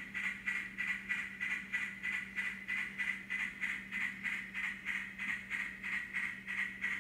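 N scale model ore train running, making a steady rhythmic pulsing of about four beats a second over a low, constant hum.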